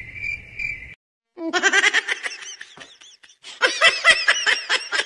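High-pitched giggling laughter in two long bursts, about a second and a half in and again from about three and a half seconds, after a steady, high pulsing chirp, two or three a second, that stops about a second in.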